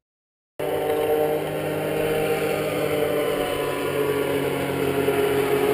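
Powered paraglider's engine and propeller running steadily overhead, a continuous drone that comes in about half a second in and slowly grows louder.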